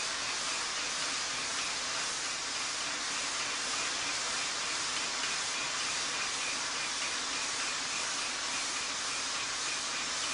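Steady hiss of steam from a 1/5-scale live-steam model of the Swiss 3/5 locomotive no. 705, running with its driving wheels turning on rollers, with a faint even ticking through it.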